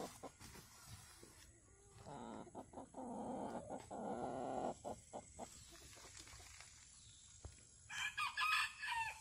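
Chickens clucking in a coop, then a rooster crows once near the end, a call of about a second.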